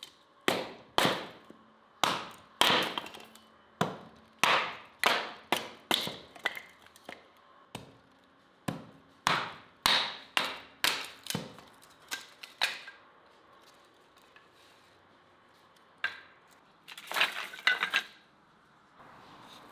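Hatchet chopping and splitting a log into kindling on a wooden chopping block: a run of sharp wooden chops and cracks, about one or two a second, for the first dozen seconds. Near the end, a quick clatter of split wooden sticks being laid down in a stone oven.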